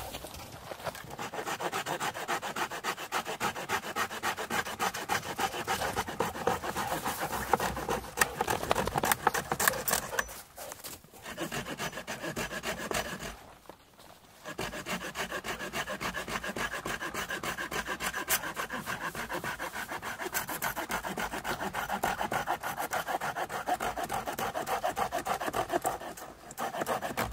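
Hand saw cutting through a cedar branch in rapid back-and-forth strokes, with two brief pauses about halfway through.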